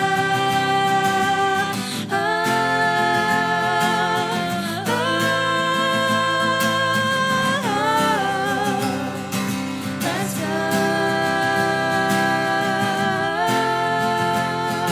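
Live folk-pop music: acoustic guitar under long held melody notes that move to a new pitch about every two to three seconds.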